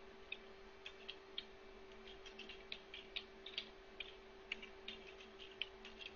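Faint, irregular clicking of computer keys, about twenty light clicks in uneven clusters, over a faint steady electrical hum.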